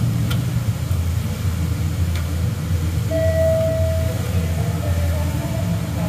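A steady low machine hum, with two faint light clicks as the loose timing chain is moved by hand.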